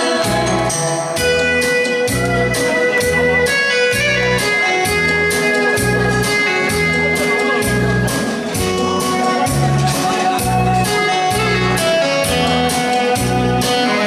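Korean trot song's backing track playing through a PA, mostly instrumental, with a steady beat of about two bass pulses a second under a held keyboard-like melody.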